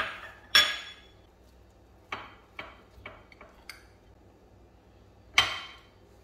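Metal spoon and fork clinking against glass dishes: about eight sharp clinks with ringing tails, the loudest about half a second in and again just past five seconds, with a cluster of lighter taps in between.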